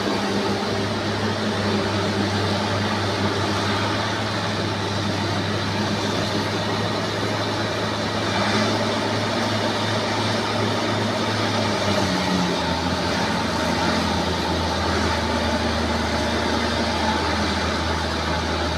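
Bulldozer's diesel engine running under steady load, its pitch wavering several times and stepping down a little about twelve seconds in.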